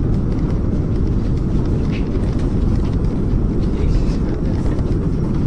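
Steady loud low rumble of a spaceship engine sound effect, the ship under way at full speed.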